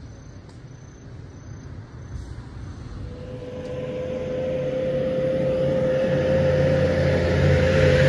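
A motor vehicle's engine, growing steadily louder from about three seconds in, with a steady hum over a low rumble.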